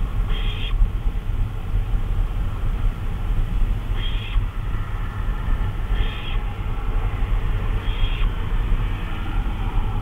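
Barn owl giving four short raspy hissing calls a few seconds apart, over a steady low rumble.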